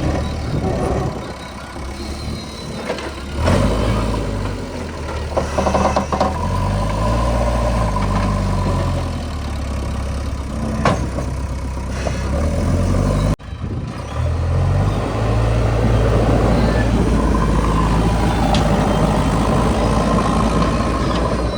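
Diesel engine of a JCB 3DX backhoe loader revving up and down as it works, with a few sharp knocks. The sound breaks off abruptly about two-thirds through and picks up again with steadier engine running.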